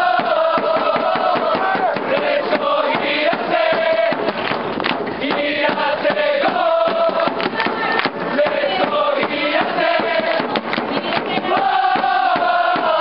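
A crowd of football supporters sings a player's chant in unison, many male voices holding long notes that step up and down. A new long held phrase starts near the end.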